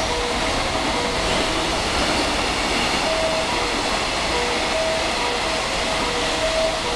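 Trains running through a station: the steady rumble and rail noise of rolling wheels as a freight train passes on the far tracks and an electric train approaches. Short beeping tones at two or three pitches come and go irregularly over it.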